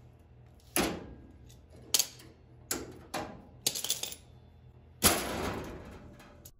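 A series of sharp metallic clicks and clanks as locking pliers are worked on the early Bronco's sheet-metal floor brace. There are about six strikes, and the last, about five seconds in, is the loudest and rings on briefly.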